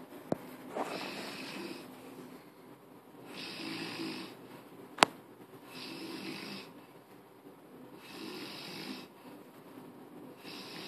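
A sleeper snoring steadily, one snore about every two and a half seconds, five in all. A single sharp click about halfway through.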